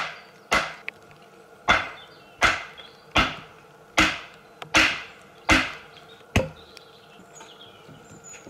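Wooden stake being driven into the ground with a steady series of heavy blows on its top, about one every three-quarters of a second, nine in all, stopping about six seconds in.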